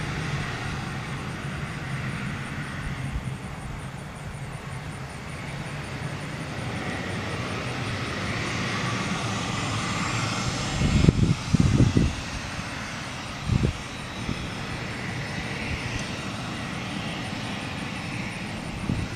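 Twin turbofan engines of a Cessna 550 Citation Bravo taxiing, a steady jet whine and rush that rises and falls a little. A few brief low buffets of wind on the microphone about eleven and thirteen seconds in.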